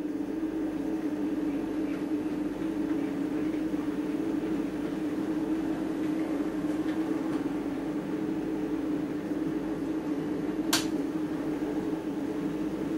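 Model train running on the layout: a steady electric-motor hum with wheels rumbling on the track, and one sharp click about eleven seconds in.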